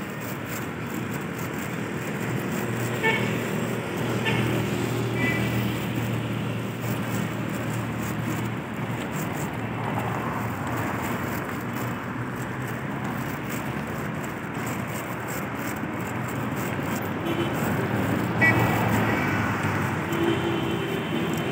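Street traffic: a steady hum of car engines and tyres on the road, with a few short high-pitched tones about three seconds in and again near the end.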